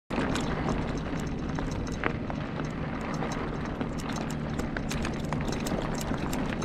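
Surly Ogre touring bicycle, loaded with bags, rolling along a highway's gravel shoulder: steady road and wind noise with irregular rattling clicks, and a sharper knock about two seconds in.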